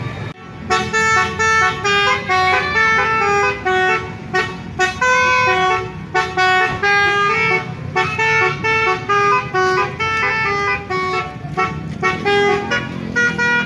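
Basuri telolet horn, a multi-trumpet car horn, playing a quick melody of short stepped notes with several tones sounding together, in phrases broken by brief gaps.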